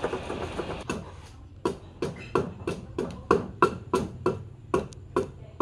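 Hand turning tool cutting a large, rough wooden blank spinning on a wood lathe: a continuous rasping cut for about the first second, then a run of about a dozen sharp knocks, roughly three a second, as the tool bites the uneven, not-yet-round blank. A steady low lathe motor hum runs underneath.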